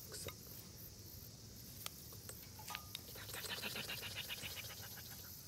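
Insects chirping in a steady high drone, joined by a rhythmic pulsing trill a little past halfway through, with a few sharp clicks.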